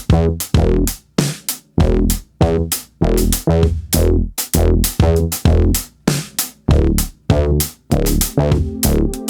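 Electronic background music with a punchy drum-machine beat and pitched bass notes.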